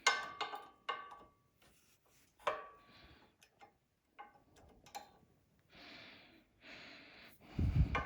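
Small metal parts clicking and clinking with brief ringing as a retainer clip is worked into place on the table saw's motor mount, followed by two rubbing scrapes and a low thump near the end.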